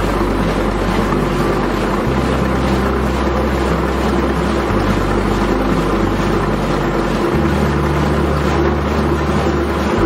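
Samsung WA60B5 top-load washing machine on its spin cycle: the drum and motor spinning with a steady whirring, whooshing noise.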